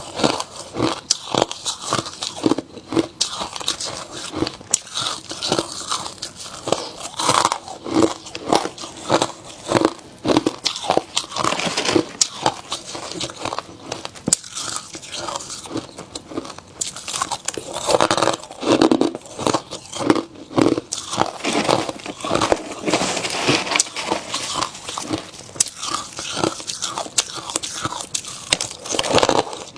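A person biting and chewing ice, with dense, irregular crunching that carries on without a pause.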